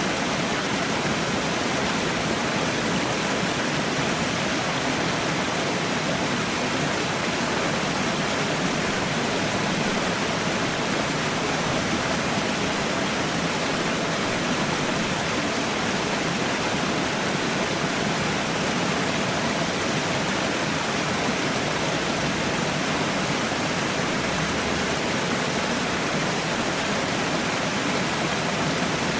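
Falling water rushing steadily, an even, unbroken noise that does not change.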